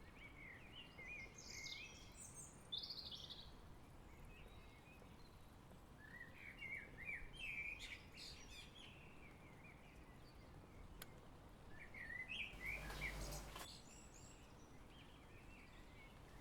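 Faint chirping and twittering of small garden birds in three short spells, over a low background hum of outdoor ambience. A brief rush of noise comes about thirteen seconds in.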